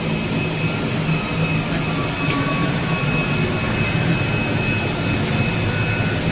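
Steady running noise of a CNC oscillating knife cutting machine's vacuum table blower: a constant low hum with a thin high whine over it.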